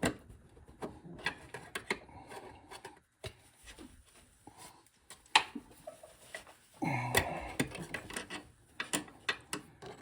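Hose clamp on a hydraulic hose being worked up into place by hand. It makes scattered sharp metal clicks and scraping, with a longer stretch of rubbing about seven seconds in.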